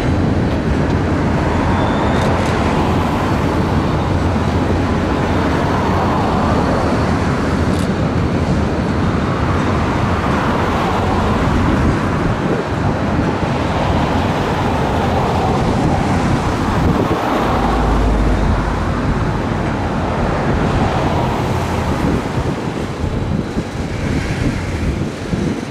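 Steady vehicle rumble with wind buffeting the microphone.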